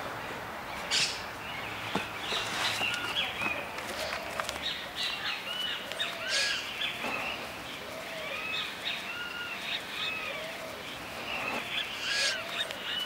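Birds calling and chirping: many short notes that rise and fall in pitch, repeated through, with a few sharp ticks scattered among them.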